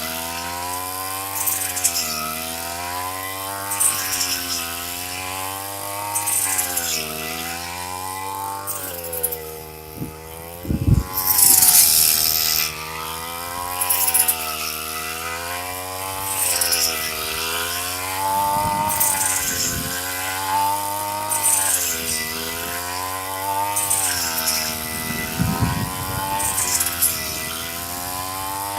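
Green Land BG330 handheld harvester's 32.6 cc two-stroke engine running continuously, its pitch dipping and recovering about every two seconds, with short crackling rushes between. About eleven seconds in there is a louder rushing burst lasting a second or so.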